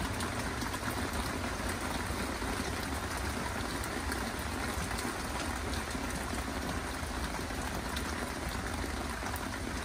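Steady rainfall: an even, unbroken hiss of rain with no thunder.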